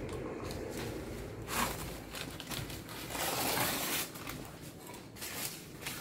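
Soft rustling and shuffling handling noises in a few short bursts, the longest about three to four seconds in.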